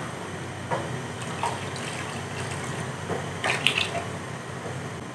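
A cooking spoon stirring chicken pieces in watery curry in an aluminium pot: liquid sloshing, with a few light scrapes of the spoon against the pot. Water has just gone in to simmer the chicken until tender.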